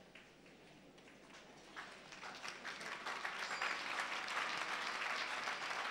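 Congregation applauding: the clapping starts about two seconds in and swells quickly to loud, many hands at once.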